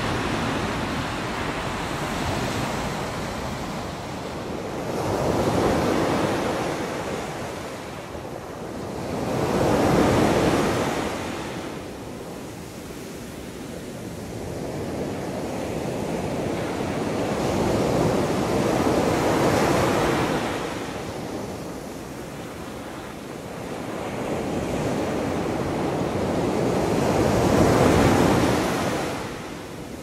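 Ocean surf: waves breaking and washing up the beach one after another, the rushing noise swelling and falling back every several seconds.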